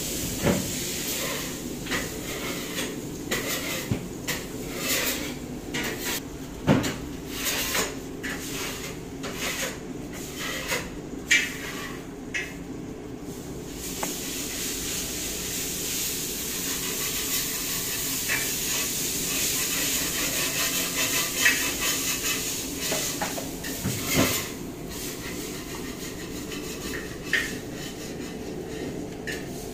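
Kitchen clatter: plates and utensils knocking and clinking, most often in the first half, over a steady hum and hiss. The hiss grows denser for about ten seconds from the middle.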